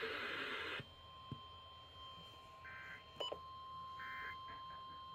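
Faint Emergency Alert System data header: three short two-tone data bursts about a second apart, over a faint steady high tone and radio hiss. The broadcast audio drops out under a second in.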